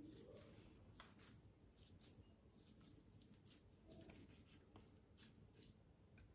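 Near silence with faint, soft, irregular pats and clicks of hands shaping raw minced-meat köfte.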